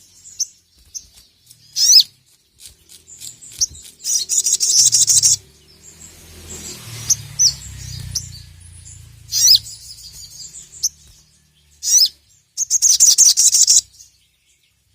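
Sogon (sogok ontong) sunbird singing: high, sharp down-slurred notes and two loud bursts of fast rattling twitter, one about four seconds in and one near the end.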